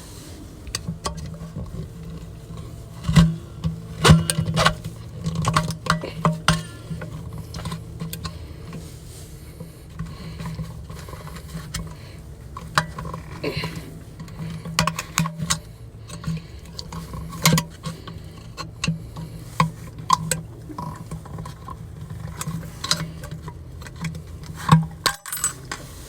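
Pool filter lid being taken apart by hand: irregular clicks, taps and scrapes as the metal C-clip is pried off and the knob worked out of the plastic lid. A few louder knocks come about three, four, seventeen and twenty-five seconds in, over a steady low hum.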